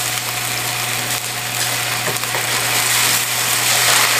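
Sauce simmering and sizzling in a wok on a gas burner while a wooden spoon stirs it, thickening after potato-starch slurry has gone in; the spoon gives a few light knocks on the pan. A steady low hum runs underneath.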